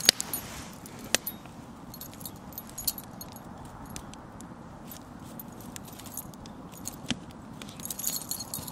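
Small dog's collar, tags and leash clip jingling and clicking as the dog moves about and plays on its leash, in scattered clinks with a few sharper clicks and a busier jingle near the end.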